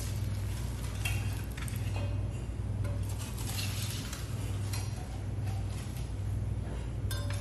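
Long knife drawn along the backbone of a giant bluefin tuna, with scattered clicks and scrapes of the blade against bone, over a steady low hum.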